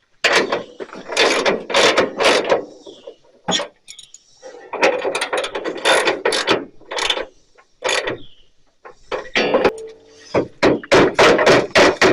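Ratchet wrench clicking in three runs of quick strokes, tightening bolts.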